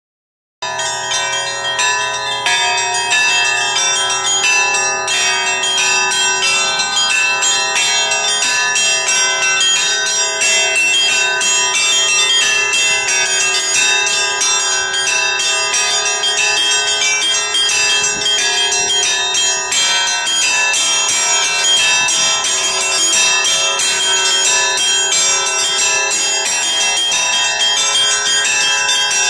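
Russian Orthodox bells ringing from a portable belfry mounted on a pickup truck, several bells struck by rope in a quick, continuous peal over their lingering tones, starting about half a second in.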